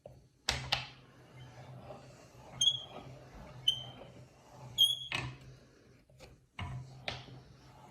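Meat grinder working bars of soap: scattered clicks and knocks, with three short high squeaks in the middle and a low hum coming and going underneath.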